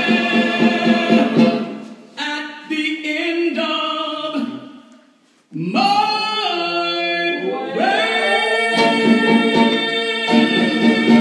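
Vocal music: several voices singing together over a sustained backing. It fades away after about two seconds, drops almost to silence near the middle, then comes back suddenly at full level.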